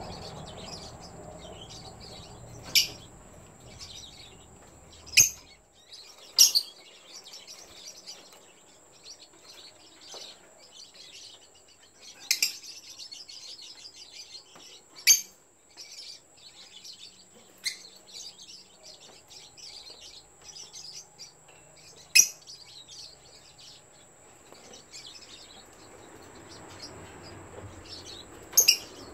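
Yellow lovebirds giving short, sharp, shrill chirps, about eight loud ones spread irregularly, over fainter quick high twittering.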